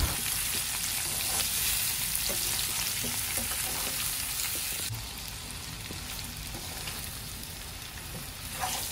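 Pieces of ellakaya fruit sizzling in hot oil in a kadai, being stirred and turned with a slotted metal spatula. The sizzle is steady and gets a little quieter about halfway through. This is the stage of frying the pieces in oil to take away their astringency.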